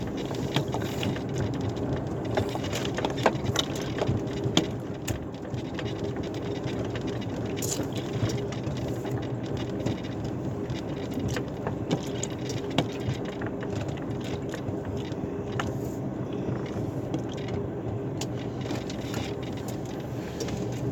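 Truck engine running steadily at low speed, heard from inside the cab, with scattered clicks and rattles.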